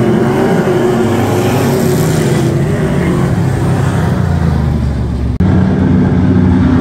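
A pack of street stock race cars running around a dirt oval, their engines loud and overlapping. The sound breaks off abruptly for an instant a little over five seconds in and picks up again.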